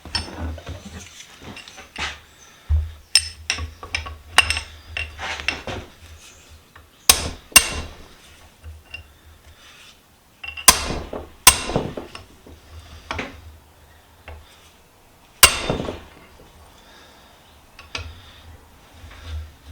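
Hammer blows on a bent steel vise handle to straighten it: several sharp ringing metal strikes at irregular intervals, with lighter clinks and knocks between them.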